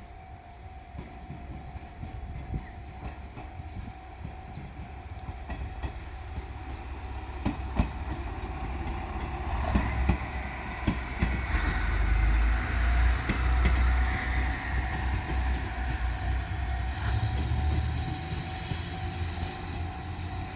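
JR Shikoku Series 1500 diesel railcar passing over a level crossing. Its engine rumble and the clack of wheels over rail joints build to a peak about halfway through and then ease off. The crossing's warning alarm rings steadily behind it.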